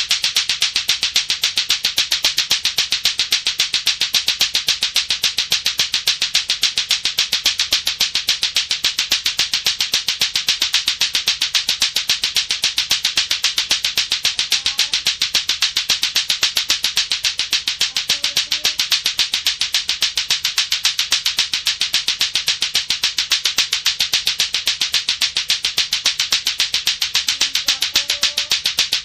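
Latto-latto clacker balls, two hard plastic balls on a string, knocking together in a fast, even rhythm of sharp clacks.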